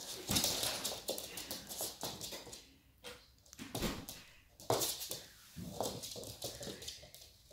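A Shiba Inu puppy's claws and paws clicking on a laminate floor as it scampers and spins about. The clicks come in quick, irregular runs, thickest in the first couple of seconds, then in a few shorter flurries.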